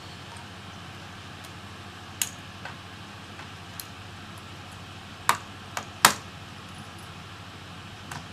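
Scattered sharp clicks and taps of small laptop parts and screws being handled during reassembly, about seven in all, the loudest two about five and six seconds in, over a steady background hum.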